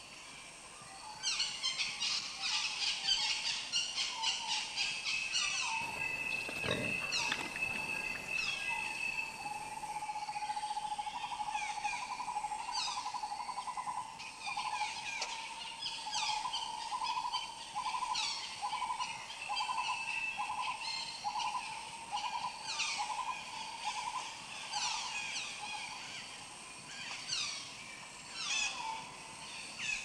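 Wild birds calling: many quick calls sweeping downward in pitch, repeated throughout, with a long pulsing trill from about ten seconds in to near the end.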